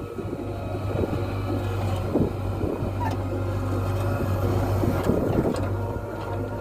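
Diesel engine of earth-moving machinery running steadily, with a few short knocks.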